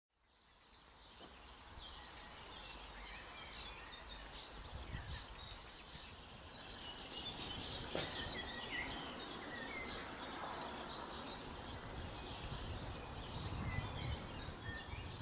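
Small birds chirping and twittering in many short calls over a low outdoor background rumble, fading in from silence at the start. A single sharp click comes about eight seconds in.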